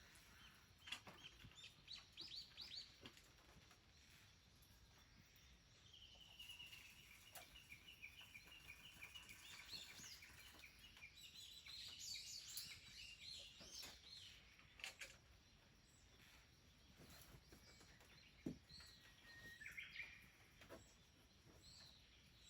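Wild songbirds calling faintly: a quick series of high falling notes, then a long trill, then busier chattering and a few single calls.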